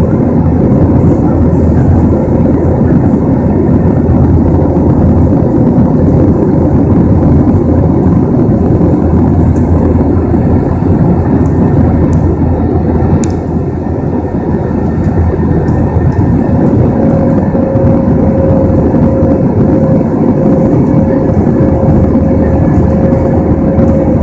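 Airbus A321 cabin noise in flight, heard from a window seat by the wing: the steady roar of the jet engines and rushing air. A steady hum joins in about two-thirds of the way through.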